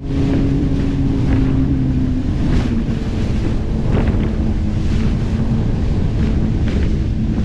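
Jet ski engine running underway over choppy sea, its note dropping slightly about two seconds in, with heavy wind noise on the microphone and splashing spray off the hull.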